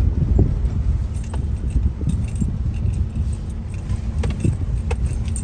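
Car cabin rumble from a slow-moving car, with scattered light metallic jingling and rattles as it rides over the rough construction road.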